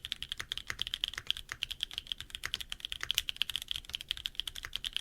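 Fast, continuous typing on a Neo80 mechanical keyboard with HG Black switches, a carbon fiber plate, dumbbell gasket mount and no foam: a steady stream of sharp keystroke clacks.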